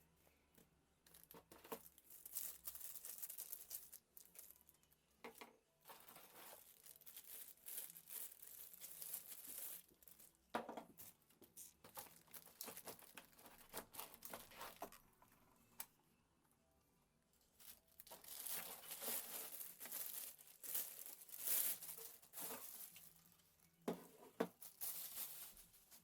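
Packaging being unpacked by hand: rustling, crinkling and tearing in irregular bursts with short pauses.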